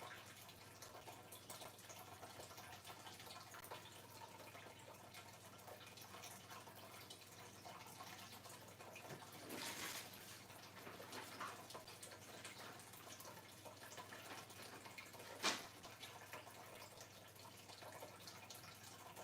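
Near silence: room tone, with a soft rustle about ten seconds in and one sharp click about five seconds later.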